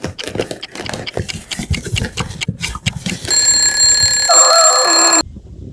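Scissors snipping and crackling through packing tape on a cardboard box. About three seconds in, an alarm clock starts ringing loudly and steadily, then cuts off suddenly near the end.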